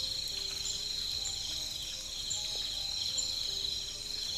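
Steady high-pitched chirring of night insects such as crickets, with faint ticks repeating above it and a few faint short low calls underneath.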